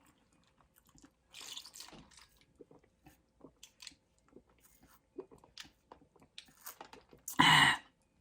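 Close-up mouth sounds of a person chewing thick, creamy Alfredo pasta: soft, irregular wet clicks and smacks, with one short, louder sound near the end.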